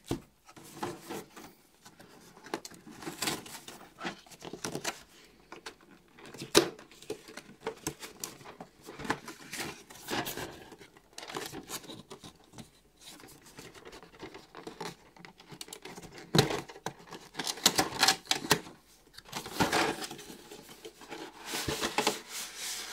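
Hands handling and opening a cardboard miniatures box: scattered taps, scrapes and rustles of cardboard and packaging, with a denser stretch of rubbing and crinkling near the end as the box is turned over and opened.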